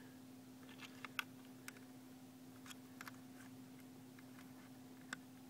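A handful of faint, light plastic clicks and ticks, spaced irregularly, as a car's side-gill trim piece and its marker-light socket and wiring are handled and fitted by hand, over a faint steady hum.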